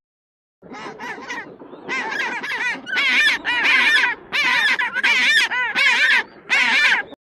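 A bird calling in about ten short bursts, each a quick run of rising-and-falling notes, starting about half a second in.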